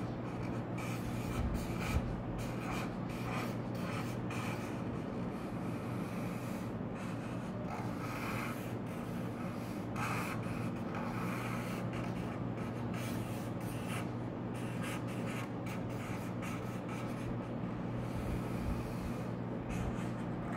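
Sharpie marker tip drawing on paper over a clipboard: irregular rubbing strokes as the line is drawn, over a steady low hum.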